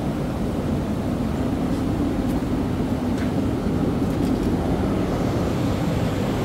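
Steady low mechanical hum with an even drone, unchanging throughout.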